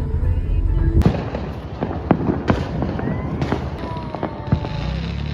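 Fireworks and firecrackers going off in a rapid, uneven string of bangs and cracks, with a few whistling glides from rockets midway. Music plays for the first second before an abrupt cut into the fireworks.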